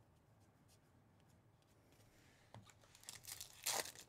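Foil trading-card pack wrapper crinkling and tearing open by hand in a series of sharp crackles, starting about two and a half seconds in after near silence.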